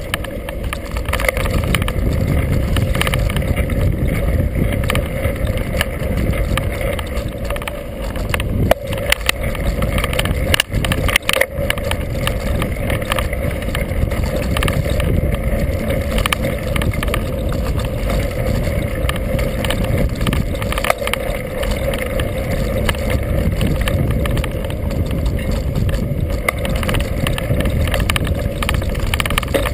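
Mountain bike on Kenda tires rolling fast over a dirt trail: a steady rumble and rattle of tires and frame over the ground, with a few sharp knocks from bumps around the middle.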